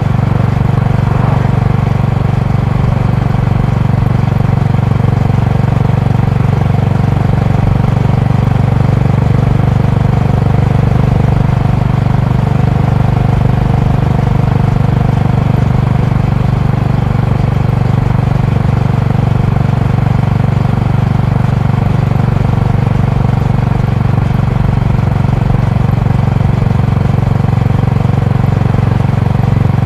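Honda GB350's air-cooled single-cylinder four-stroke engine and exhaust running at a steady cruise. The low pitch holds even throughout, with no revving or gear changes.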